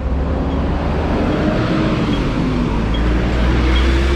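Box truck's engine running as it drives close past in street traffic, its engine note rising slowly, over a heavy low rumble of traffic and wind on the microphone. Short high beeps, about one every 0.8 s, come from a pedestrian crossing signal.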